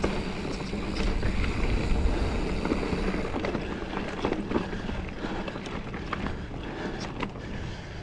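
Mountain bike riding over rocky trail: tyres rolling and bumping over rock, with wind on the mount-camera microphone and scattered sharp clicks and rattles from the bike.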